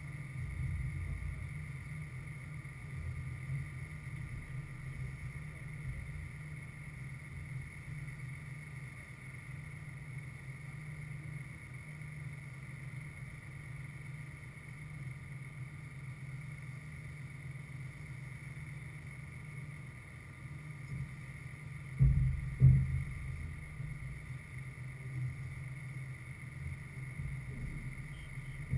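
Wind buffeting an outdoor camera microphone: a steady low rumble with a faint steady high hum over it, and two sharp louder thumps close together about three-quarters of the way through.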